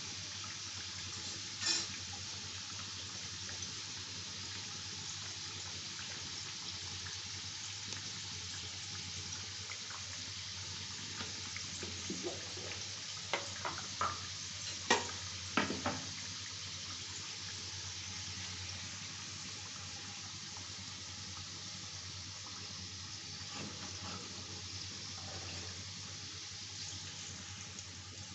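Sattu-stuffed litti deep-frying in hot oil in an iron kadhai, the oil sizzling steadily, with a few sharp clicks about halfway through.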